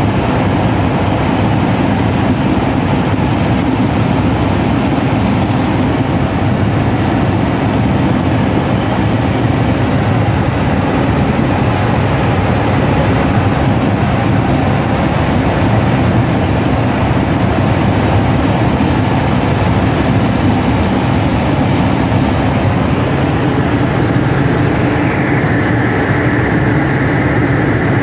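Helicopter in flight heard from inside its cabin: steady, loud engine and rotor noise.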